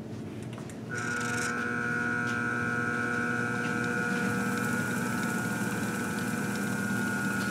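Dynamic balancing machine spinning a 454 big-block Chevy crankshaft fitted with bob weights, for a balance reading. It starts about a second in and runs at a steady speed with a steady high whine over a lower hum.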